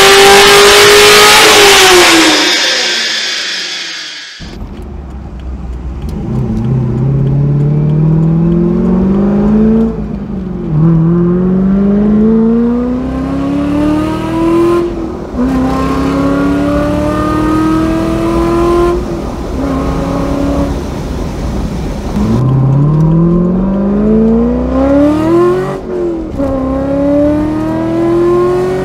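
1998 C5 Corvette's V8, with LS6 heads and intake, an aggressive cam and long-tube headers, held at high revs on a chassis dyno and then winding down. Then, heard from the cabin, the same engine accelerating hard through the gears, its note rising and dropping back at each of several upshifts over a low exhaust rumble.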